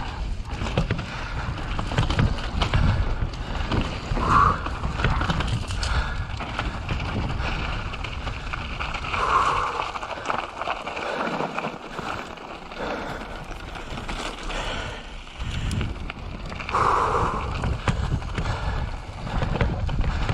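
Mountain bike riding fast down a rough downhill trail: steady tyre and trail noise with wind buffeting the microphone.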